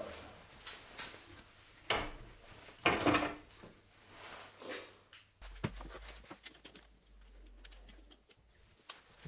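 Handling noise from a wooden lathe blank and its metal four-jaw chuck: a few separate knocks and clunks in the first five seconds, then faint clicks and taps.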